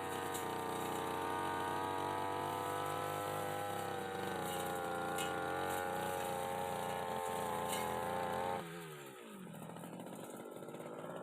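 Brush cutter's small petrol engine running steadily at high speed while trimming a hedge; about three-quarters of the way through the throttle is released and the engine speed falls away quickly to a quieter idle.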